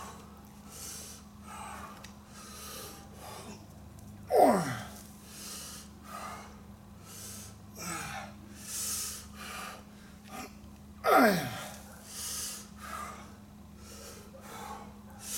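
A man breathing hard in quick, rhythmic breaths while straining through a set of barbell lifts. Twice, about four and eleven seconds in, he lets out a loud grunt that falls in pitch.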